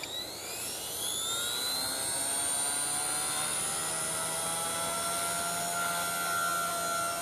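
Blade mCP X BL micro RC helicopter's brushless motor and rotor spooling up: a whine that rises in pitch over the first two seconds, then holds steady.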